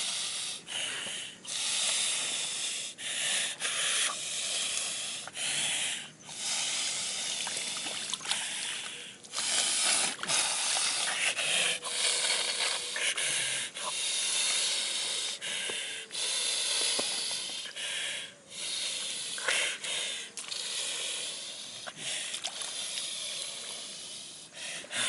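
A man hissing and breathing hard through an open mouth, in long noisy bursts broken by short pauses.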